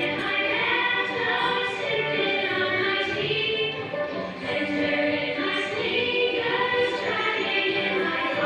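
A group of children singing a song together, holding sustained sung notes.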